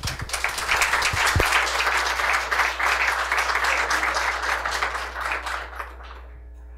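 Audience applauding, a dense patter of many hands that builds in the first second, holds, and dies away about six seconds in. A single low thump comes about a second and a half in.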